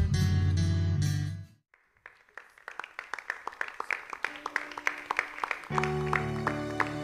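Loud music with a heavy bass ends about a second and a half in. After a brief pause a guitar picks rapid notes, and about two-thirds of the way through sustained bass notes and chords join in, opening the instrumental introduction to a worship song.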